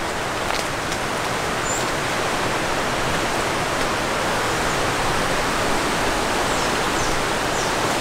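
Steady, even rushing of flowing water, with a few faint high chirps in the last seconds.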